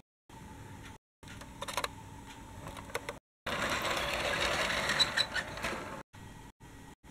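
Dickie Toys City Liner toy tram running past along the track: a loud rattling run that starts about halfway through and fades out after about two and a half seconds. Before it there is only a faint steady hum with a few clicks.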